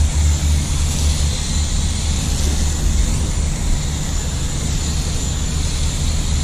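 Garden-hose foam gun spraying thick shampoo foam onto a car's paint: a steady hissing spray, with a steady low rumble underneath.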